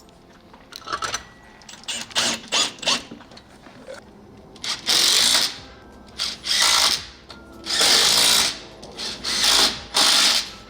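Power drill driving wood screws into a wooden beam in four short bursts, each spinning up and winding down, to fix a mount in place. A few clicks and knocks of handling come before the first burst.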